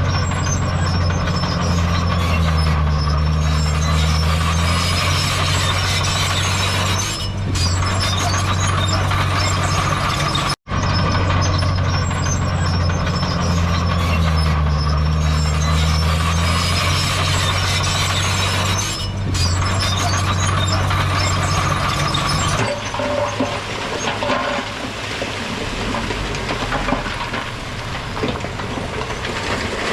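Heavy diesel earthmoving machinery running under load, a steady deep engine drone. The sound cuts out for an instant about ten seconds in. From about 22 seconds the deep drone drops away, leaving a thinner, noisier machine sound.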